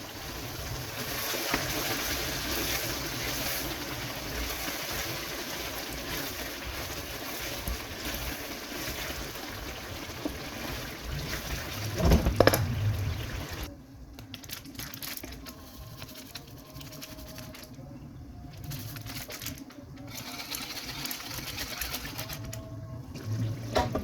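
Food cooking in a pan with a steady sizzling noise. There is a knock of a utensil about twelve seconds in, and shortly after the noise drops sharply to a much quieter level.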